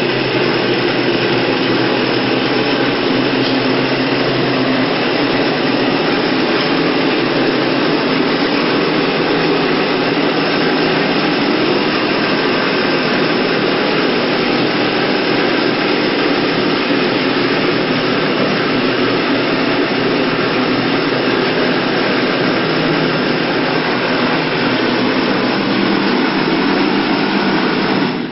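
A loud machine running steadily with a constant hum, shutting off right at the end.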